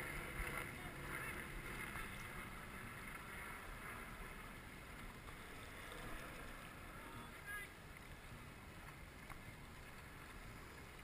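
Faint, steady open-air hiss of wind and water around a dragon boat drifting with its paddles at rest, with a faint murmur of voices near the start.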